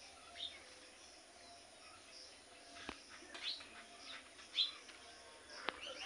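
Alexandrine parakeet giving a handful of short, high chirps scattered a second or so apart, with two sharp clicks between them.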